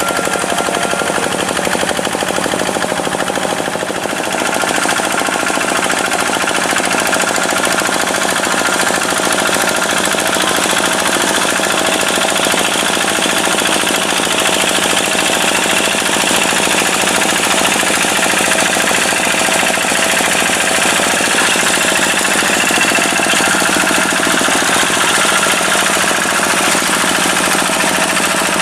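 Diesel tractor engine running steadily with a fast, hard clattering beat, dipping briefly about four seconds in.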